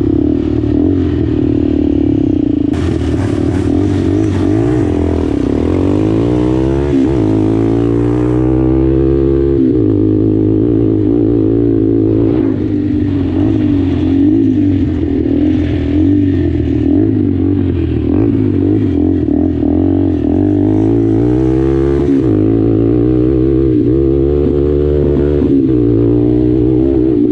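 Suzuki LT-Z400 sport quad's single-cylinder engine ridden hard, heard from the rider's seat: the revs climb, drop back at gear changes, and climb again several times, with one sharp drop about ten seconds in.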